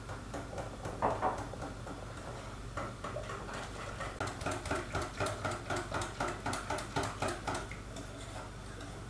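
Wire whisk beating pancake batter in an enamel pot: a brief louder clatter about a second in, then from about three seconds a steady run of quick strokes against the pot, about three a second.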